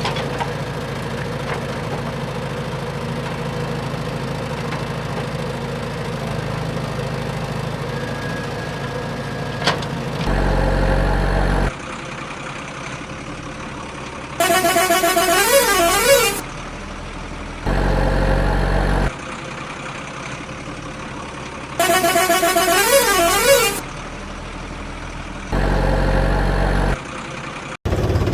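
Toy vehicle sound effects: a steady engine-like hum, then from about ten seconds in three electronic horn honks of about a second and a half each, alternating with two bursts of a warbling siren-like tune.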